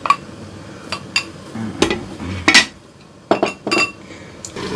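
Clinks and knocks of cookware: a wooden spatula tapping ginger out of a glass container over the frying pan, then a glass lid set down on the pan with a clatter. The loudest clink comes about halfway through.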